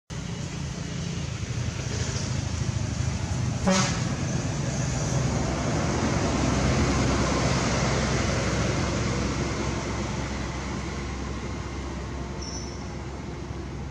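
A motor vehicle passing: a steady rushing noise with a low hum that swells for several seconds and then fades. A brief sharp sound with a pitch comes about four seconds in.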